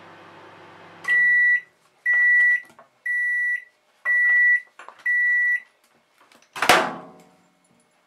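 Morphy Richards Accents microwave oven ending its cycle: the low running hum cuts off about a second in, then the oven sounds five high beeps about a second apart to signal that cooking is done. Near the end the door release opens with one sharp clunk.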